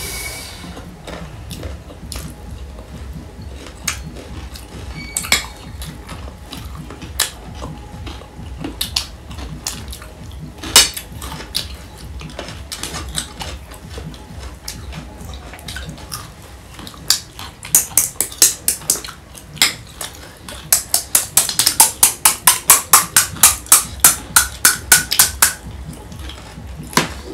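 Close-miked eating sounds: scattered clinks of spoons against bowls and plates, and mouth noises of chewing. In the last third there is a fast run of sharp clicks, about four a second.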